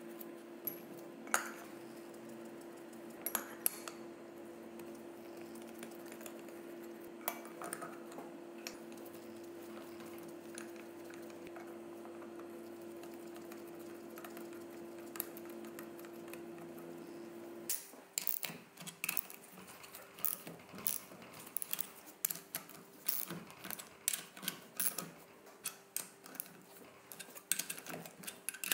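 Small metal parts clinking and tapping. At first there are only a few scattered clinks over a low steady hum; the hum cuts off about 18 seconds in, and after that the clinks come rapidly and irregularly.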